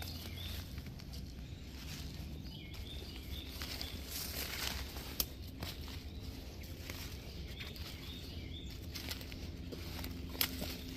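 Footsteps crunching and rustling through dry fallen leaves on a woodland floor, with a couple of sharper snaps along the way. A small bird chirps in short bursts of repeated high notes.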